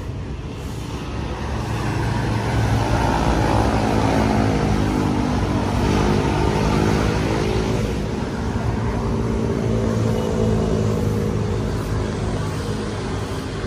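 City road traffic, with cars and motorcycles passing one after another. The engine hum swells and fades several times.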